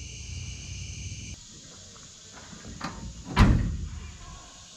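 Crickets chirping in a steady high chorus that cuts off after about a second and a half. A couple of seconds later comes a short click, then a single heavy thud like a door or hatch slamming shut.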